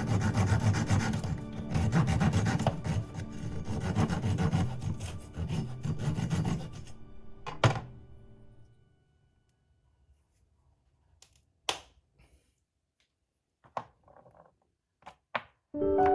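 Hand saw rasping through wood over soft background music for the first several seconds, then stopping. A sharp knock follows, and after that only a few faint taps in near silence.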